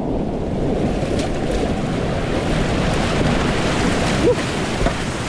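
Whitewater rapids rushing steadily, the churning water close to the microphone, with a short squeak about four seconds in.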